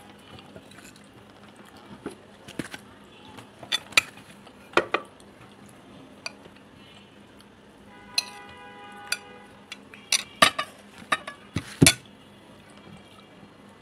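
A metal spoon clinking and scraping against ceramic plates as fish is served from one plate onto another: a scatter of sharp clinks, with a plate ringing briefly about eight seconds in and a quick run of louder clinks near the end.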